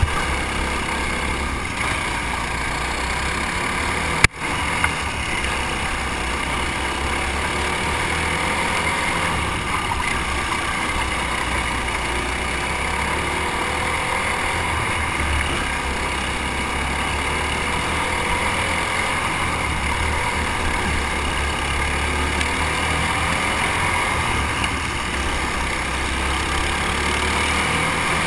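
Dirt-track racing kart engines running hard at race speed, recorded onboard with a strong low rumble and engine pitch rising and falling through the turns. A single sharp click with a brief dropout about four seconds in.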